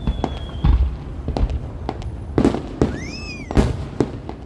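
Fireworks display going off in a rapid, irregular string of loud bangs over a low rumble. A short rising-then-falling whistle comes about three seconds in.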